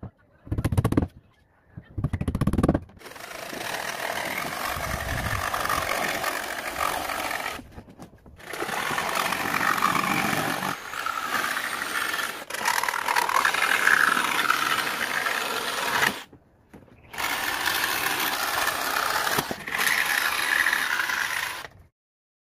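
A few quick hammer blows driving nails into marine plywood, then a jigsaw cutting a plywood board in long runs, stopping briefly twice.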